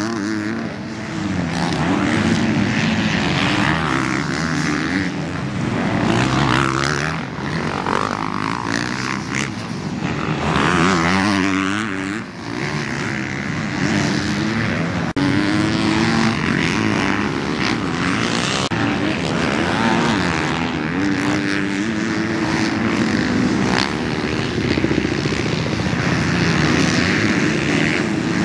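Motocross dirt bike engines revving hard and falling back again and again, several bikes on the track at once, including a 450 four-stroke.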